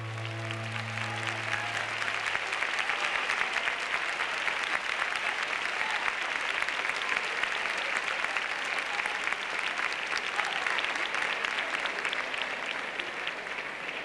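Audience applauding steadily, with the song's last held chord dying away in the first two seconds.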